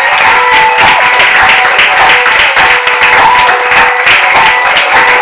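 Audience clapping and applauding, dense and quick, with music still sounding underneath.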